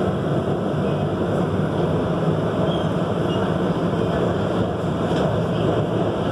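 Metro train running through a tunnel, heard from inside the leading car: a steady rumble of wheels and motors that holds an even level.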